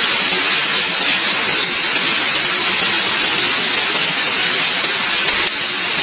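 Heavy rain pouring down in a steady, dense hiss.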